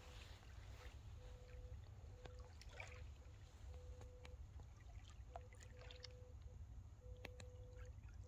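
Near silence: a faint steady low rumble of outdoor ambience, with a few small scattered ticks and a faint hum that comes and goes.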